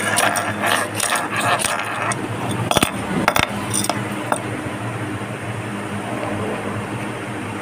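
Small sharp clicks and scratching of a safety pin prying at a plastic cap jammed inside another cap, mostly in the first half, over a steady hum.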